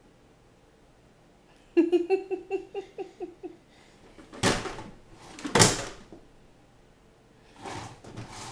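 A toddler's ride-on toy car playing an electronic sound: a quick run of about ten short beeps at one steady pitch, lasting about a second and a half. Two short noisy sounds follow a second or two later, and another near the end.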